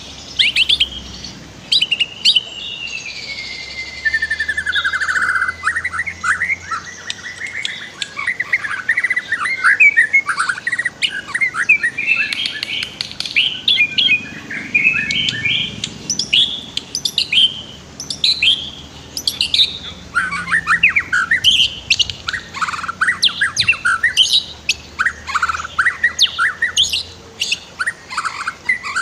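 White-rumped shama singing a continuous, varied song of rapid whistles, trills and chattering phrases, with a long falling whistle a few seconds in.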